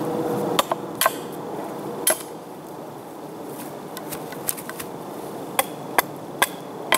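A hatchet chopping at an upright wooden stick held in one hand: sharp, irregularly spaced strikes, about eight in all, with a pause of about two seconds in the middle.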